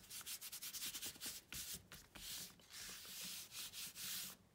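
Hands rubbing and smoothing paper in a run of brisk, uneven strokes, pressing down a freshly glued piece that is not yet dry.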